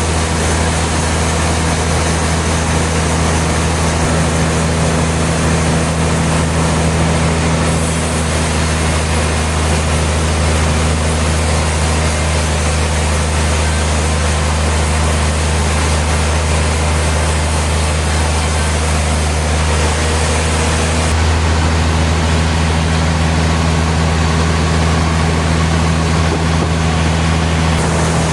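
Sawmill machinery running with a steady, loud low drone and a constant hiss of noise above it, changing slightly a few times but never stopping.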